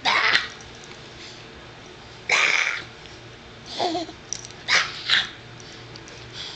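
A woman making odd, short, breathy bark-like noises with her voice, five in all, the last two in quick succession; one partway through slides down in pitch.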